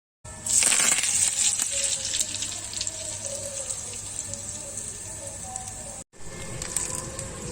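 Tempering for coconut chutney sizzling in hot oil in a pan: a hiss that bursts up loudly just after the start and slowly settles, with a few light crackles. It breaks off briefly near the end, then carries on.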